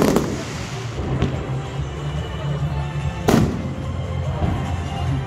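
Aerial fireworks bursting overhead: a bang at the start, a fainter one about a second in and the loudest about three seconds in, over steady background music.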